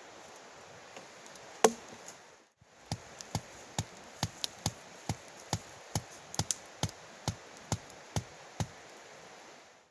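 A hand blade chopping wood: one hard stroke about a second and a half in, then a steady run of light, sharp strokes, about two a second.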